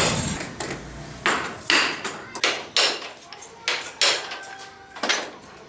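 Irregular sharp knocks and clinks of hard objects striking, about half a dozen, each with a brief ring.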